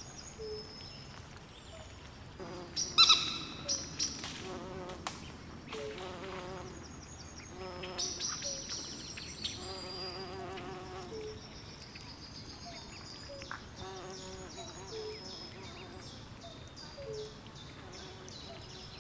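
Swamp night chorus of frogs and insects: a steady run of high repeated chirps, with low warbling trills that come and go, and one louder call about three seconds in.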